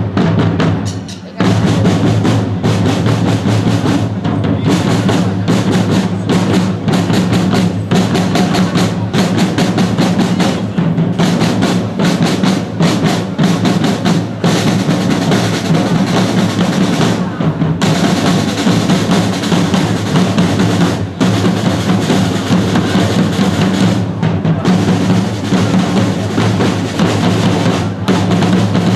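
A corps of costumed side drummers playing together in a continuous, rolling cadence, dropping off briefly about a second in and then running on without a break.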